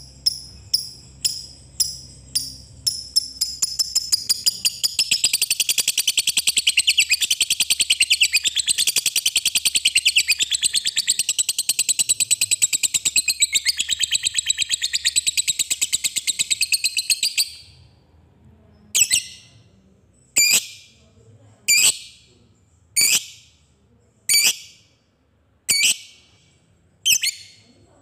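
Lovebird calling: sharp single chirps about twice a second speed up into a long, rapid, unbroken chattering trill (the 'ngekek') of about fourteen seconds. The trill breaks off suddenly, and single sharp calls follow about every second and a half.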